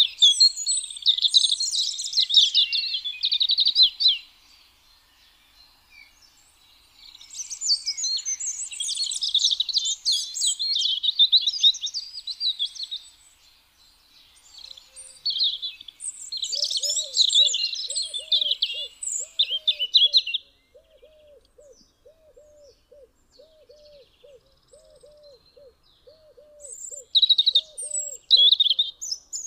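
European robin singing: high, thin, warbling phrases of a few seconds each, separated by pauses, four phrases in all. Through the second half a faint, low note repeats steadily beneath the song.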